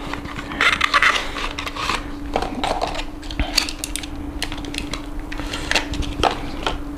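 Cardboard box and clear plastic case of a Mini GT 1:64 diecast model car being handled and opened: scattered clicks, taps and rustles of plastic and card, over a steady low hum.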